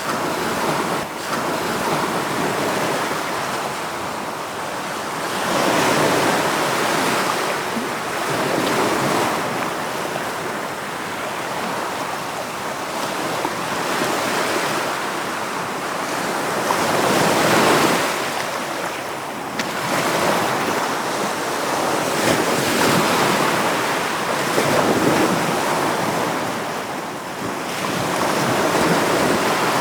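Sea waves breaking on a beach, the surf swelling and easing back every few seconds.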